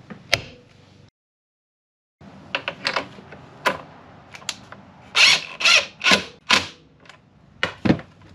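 Metal and plastic clicks and knocks of bolt hardware being fitted to the quick-adjust ski stance kit on a snowmobile ski. About a second in the sound cuts out completely for about a second; a little past the middle come four louder, harsher short bursts close together.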